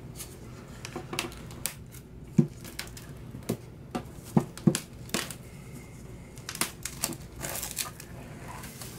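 Plastic shrink wrap being slit with a hobby knife and peeled off a metal tin box: scattered clicks and taps against the tin, with crinkling of the plastic.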